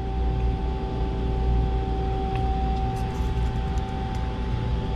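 Steady machine hum from a powered-up Mazak CNC lathe standing idle and the surrounding shop machinery: a low rumble with a constant mid-pitched tone, and a few faint clicks.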